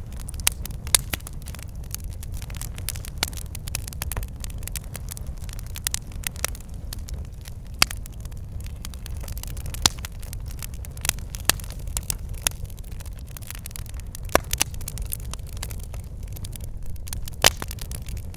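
Campfire burning: a steady low roar of flames with irregular crackles and sharp pops from the burning wood, a few of them loud.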